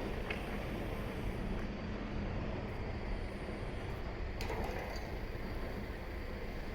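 Steady low rumble of a train moving away along the track, fading into city traffic noise, with a couple of faint clicks.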